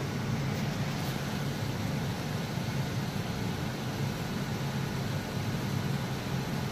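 Steady low hum and hiss of machine-like background noise, with a couple of faint clicks in the first second.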